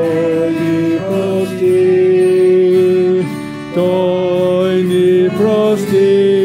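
A small group of men and women singing a Bulgarian hymn together in unison, holding each note for about a second between phrases.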